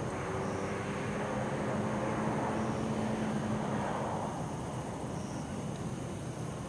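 A vehicle passes by below, its engine and road noise swelling to a peak a couple of seconds in and then fading away. Over it, bell crickets give short high chirps every two seconds or so.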